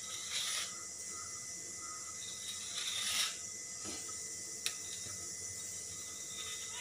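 A knife drawn through paper-thin, oiled parotta dough against the work surface, slicing it into thread-thin strips: two soft scraping strokes about two and a half seconds apart, and one sharp click a little before five seconds in.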